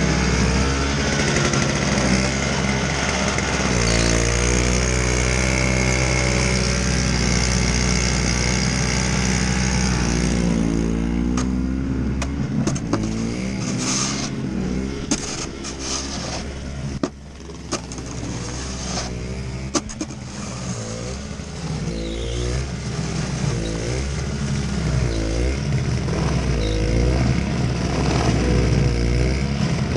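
Toro single-stage snowblower engine running, its pitch wavering up and down as it works through heavy, wet snow. Scattered sharp knocks come through the middle of the stretch.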